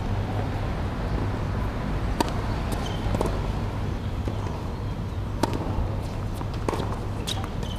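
Tennis ball struck by rackets and bouncing on a hard court during a rally: several sharp pops a second or more apart, one with a brief ring, over a steady low hum.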